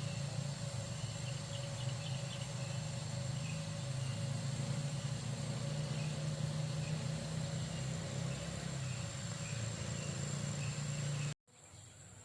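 A steady low mechanical hum, like an idling engine, with faint high chirps over it. It cuts off abruptly near the end, leaving quieter ambience with a few light clicks.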